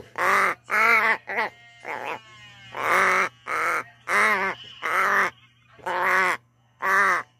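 Pet crow calling repeatedly: about ten short caws with brief gaps between them.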